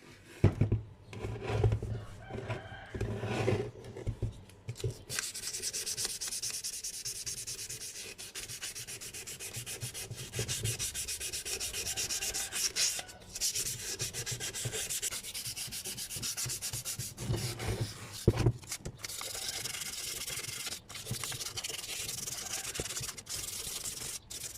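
Sandpaper rubbing over a steering wheel: a steady scratching hiss with brief pauses. It follows a few seconds of handling knocks at the start.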